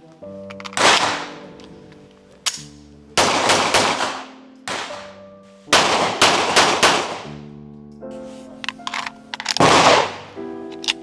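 Heckler & Koch P7M13 9 mm Luger pistol firing: single shots and quick strings of several shots, each with a ringing echo, the loudest near the end. Background music with sustained notes plays under the shots.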